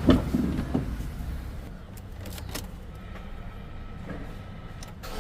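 Ford Ranger 2.2 diesel engine cranked on the key and catching in the first second, then idling steadily, with a few light clicks. It starts now that a borrowed fuse box is fitted, which shows the original fuse box is faulty.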